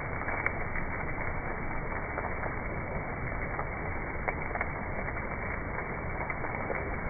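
A steady hiss with scattered crackles and pops, a few louder ones about half a second in and again around four and a half seconds in.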